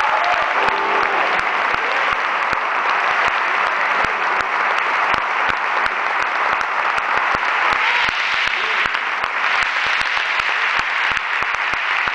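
Audience applauding steadily, a dense even clapping throughout.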